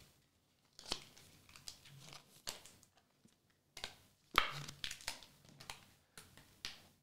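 Trading cards and hard plastic card holders being handled on a table: soft crinkly rustling of plastic with a few light clicks and taps.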